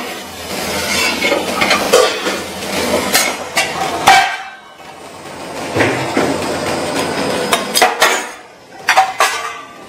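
Steel spatula scraping and clanking against a steel kadai as poha is stirred, with sharp metallic knocks and clinks of steel dishes; a brief lull about four seconds in.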